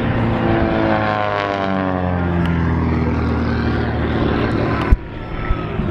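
Propeller aerobatic airplane's engine passing overhead, its pitch falling as it goes by and then holding steady. A sharp click comes near the end, and the engine sound drops after it.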